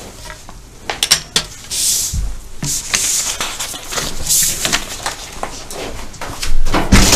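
Handling noises as people rise from armchairs and papers are gathered on a small table: scattered clicks and knocks and several bursts of paper and clothing rustle, with a heavier thump near the end.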